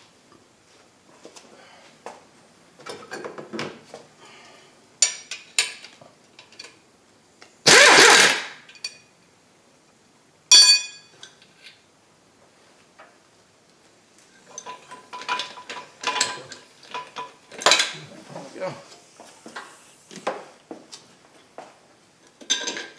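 Socket wrench and extension working bolts in a car's engine bay while the engine's torque mount bolts are undone: scattered metallic clicks and clinks, a short loud rasp about eight seconds in, and a sharp ringing clink of metal on metal a couple of seconds later.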